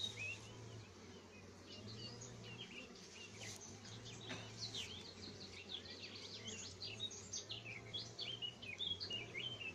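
Small birds chirping and twittering in quick, high, repeated calls, over a low steady hum of honeybees from the open hive.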